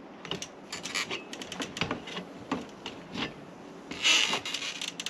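Irregular knocks and clanks of shoes and hands on an RV's rear metal ladder while climbing down from the roof, with a short scraping rustle about four seconds in.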